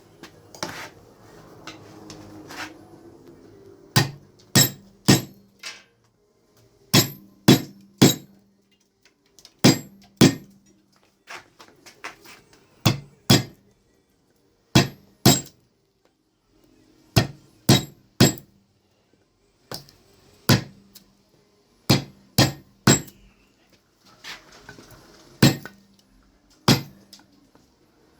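A hammer driving a carving chisel into wood: sharp knocks in runs of two or three about half a second apart, with short pauses between runs and a faint high ring on each blow.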